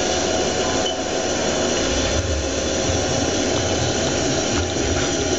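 Haas CNC lathe running with its spindle turning forward: a steady machine whir and hiss with a low hum underneath, as the tool is jogged in to touch off on the face of the part.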